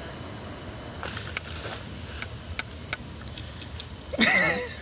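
Steady high-pitched chorus of crickets on a summer night, with a few faint clicks from about a second in and a brief voice near the end.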